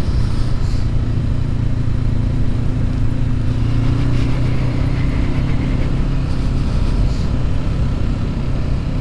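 2019 Honda CB500X's parallel-twin engine running at a steady cruising speed, its note holding even throughout, with road noise over it.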